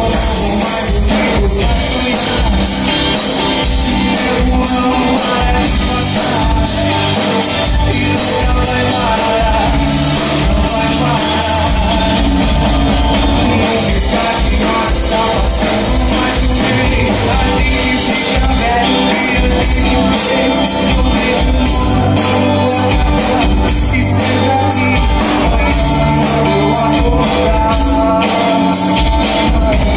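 A band playing, with singing over drums, bass and guitar; the drum beat becomes more pronounced in the second half, at about two strokes a second.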